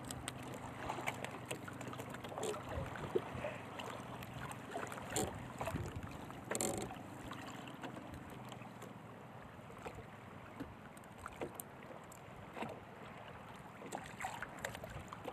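Quiet wind and water around a small outrigger boat, with scattered light clicks and rustles from hands working a fishing hook and line while baiting it.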